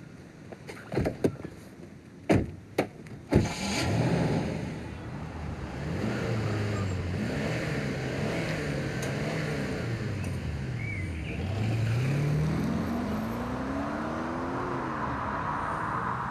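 A handful of sharp knocks and bangs in the first few seconds, then a car engine running and revving, its pitch rising and falling back several times.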